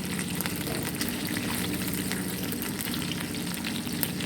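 Pork frying in a pan: a steady sizzle with scattered crackles.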